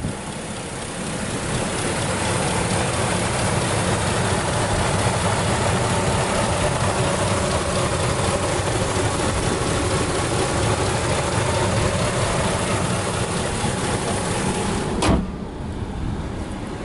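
Ford 4.6-litre Triton V8 in a 1997 F-150 idling steadily under an open hood. Near the end the hood slams shut with one sharp bang, and the engine sounds quieter and muffled after it.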